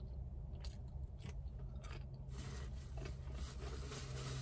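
A person biting and chewing crispy fried food, a series of crunches that grow denser in the second half, over a steady low hum.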